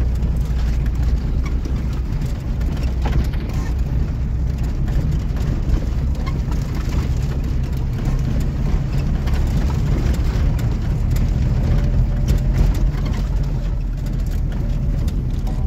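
A car driving over a rough, muddy dirt track, heard from inside the cabin: the engine and road noise make a steady low drone, with many small knocks and rattles from the body and suspension over the bumps.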